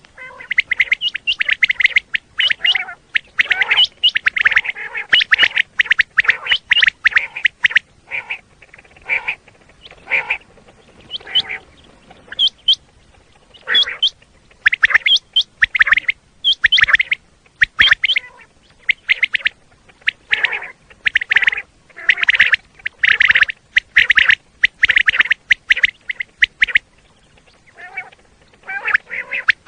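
Common quail calling over and over: loud, short high calls in quick runs separated by brief pauses.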